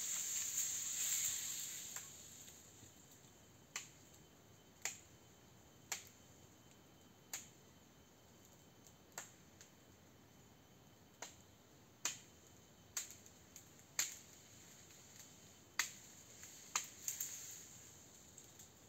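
Sharp knocks of a hand blade chopping into tree branches, about a dozen single strikes at uneven intervals of roughly a second, with a leafy rustle at the start and again near the end.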